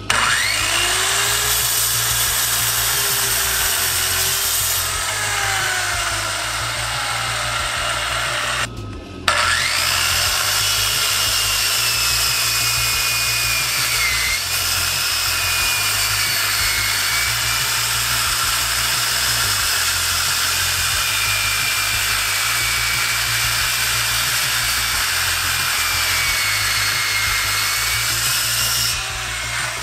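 Porter-Cable corded circular saw, running off a 12 V battery through a 2000 W power inverter, spinning up with a rising whine and cutting through a wooden board. It starts up again after a short break about nine seconds in and runs steadily for the rest of the cut, the inverter handling the saw's pull.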